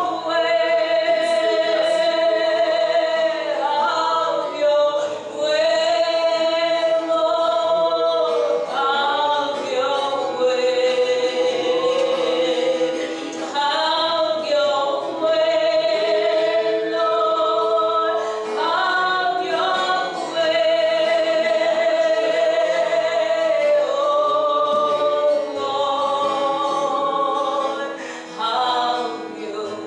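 Slow worship singing in long held notes, with an acoustic guitar accompanying.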